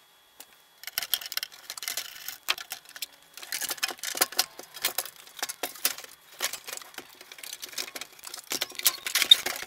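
The metal case and chassis of a Hameg HMO-3522 oscilloscope being lifted, turned and handled on a workbench: a quick string of clicks, knocks and light rattles, starting about a second in.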